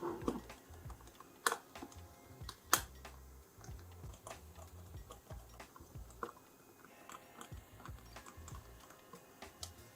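Faint scattered clicks and taps of a small Phillips screwdriver working on the plastic shell of a PS4 DualShock 4 controller as its back screws are taken out, with two sharper clicks about one and a half and nearly three seconds in.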